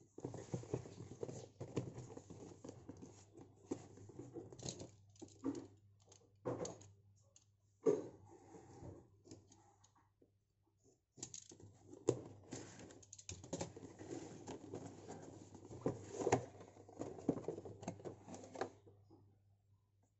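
Cardboard product box being handled and cut open with a utility knife: irregular scraping, tapping and rustling of cardboard, with a short pause about halfway through.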